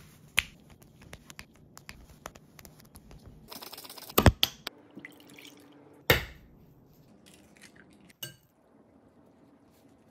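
Kitchen food-prep handling sounds: scattered light clicks and taps, with two sharper knocks about four and six seconds in.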